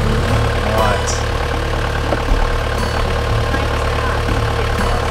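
Sailing yacht's inboard diesel engine running steadily at low revs, a constant low drone. It is held to low revs because of an engine problem, limping the boat along on partial power.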